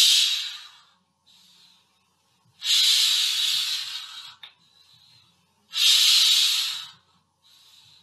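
Bicycle floor pump worked by hand, letting out long hissing puffs of air about every three seconds, with a shorter, fainter hiss on each return stroke between; pumped air used to imitate wind.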